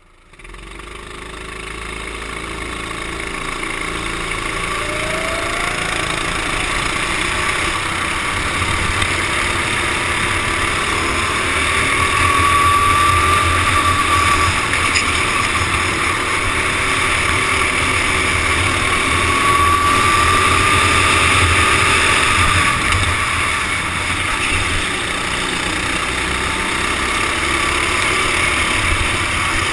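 Racing kart engines running hard in a close pack, the nearest kart's engine note rising and falling as it is driven through the corners, picked up by a helmet-mounted camera. The sound fades in over the first couple of seconds.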